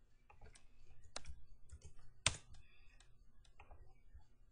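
Computer keyboard keys tapped in a short, irregular run of clicks, with one sharper, louder keystroke a little past two seconds in.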